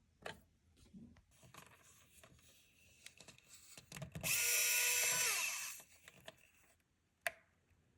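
Small electric screwdriver motor whirring for about a second and a half, its pitch falling as it winds down, while it drives in the M.2 drive's mounting screw. Light handling clicks come before it, and one sharp click follows.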